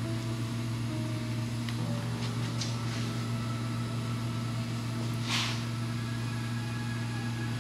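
A steady low machine hum, with a few faint clicks and a short scrape about five seconds in as metal shifter parts are handled on the transmission.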